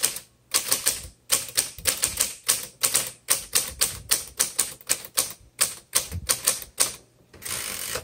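Adler J2 manual typewriter typing: type bars striking the paper in a steady run of keystrokes, about three a second. Near the end comes a longer rasping sound of about half a second.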